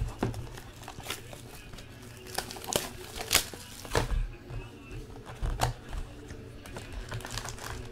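A cardboard hobby box of 2015 Panini Prizm Football cards being opened and its foil card packs handled: irregular crinkling and tearing with scattered sharp clicks.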